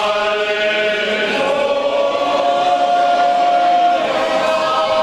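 A group of people singing together in unison, holding long drawn-out notes.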